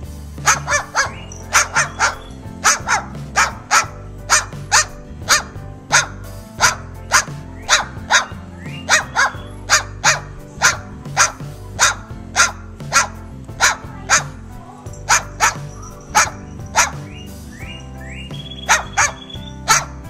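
Cockatoo barking like a dog: a long run of short, sharp barks, roughly two a second, over background music.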